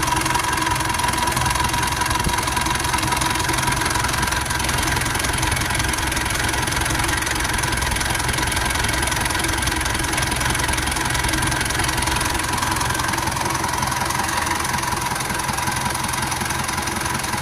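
Engine idling steadily with a rough idle.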